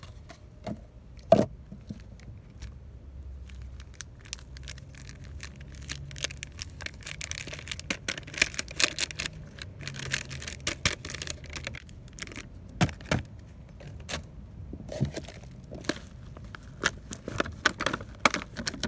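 Thin plastic nursery pots and a plastic seedling tray crinkling and crackling as they are squeezed, flexed and tapped to empty old soil out, with a few sharp knocks, the loudest about a second in and another around two thirds of the way through.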